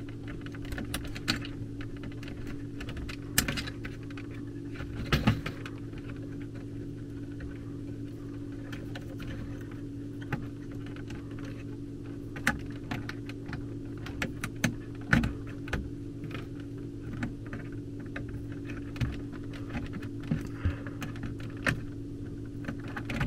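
Irregular small clicks and taps of low-voltage thermostat wires being handled and fitted into the terminal strip of a Honeywell HZ322 zone control board, over a steady low hum.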